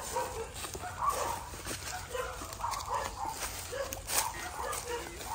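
Animal calls: many short, pitched, yipping calls one after another, with scattered sharp clicks and crackles, one louder about four seconds in.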